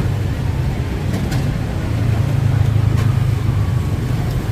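Road traffic rumbling, with a heavy vehicle's engine growing louder about two seconds in.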